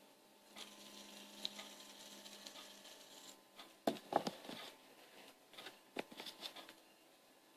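Toys being handled: scattered light clicks and knocks, with a cluster of louder knocks about four seconds in, over a faint steady hum.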